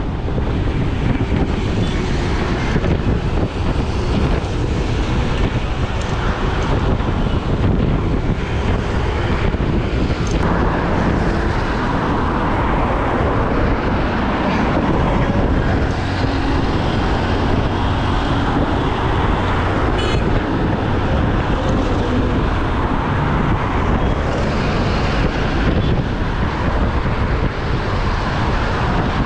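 Wind rushing over the camera microphone of a road bike ridden at around 40 to 50 km/h, mixed with steady road noise from the motor traffic alongside.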